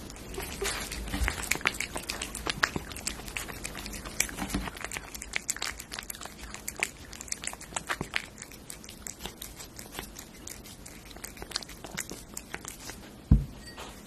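A cat chewing and licking soft, moist food, a dense run of small wet clicks and smacks. About 13 seconds in, a single thump as a glass dish is set down on the wooden board.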